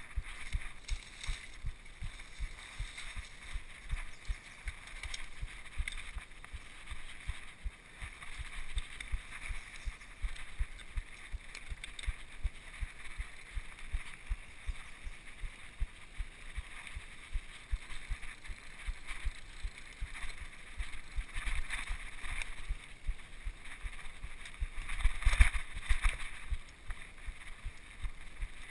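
Mountain bike rolling over a rough dirt singletrack: rattling and frequent small knocks of the bike and its mounted camera over bumps, with a louder jolt near the end.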